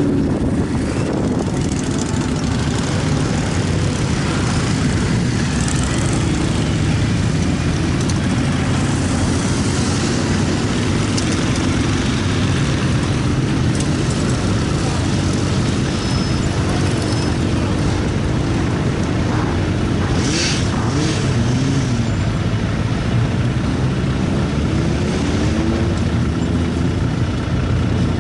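Engines running: the steady low drone of a Class 66 diesel locomotive's two-stroke V12 moving at walking pace, mixed with a group of motorcycles passing over a level crossing. A few rising and falling engine notes come through in the second half.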